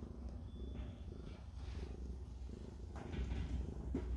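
Mother cat purring steadily while nursing her newborn kittens, a low continuous rumble, with a couple of soft rustles about two and three seconds in.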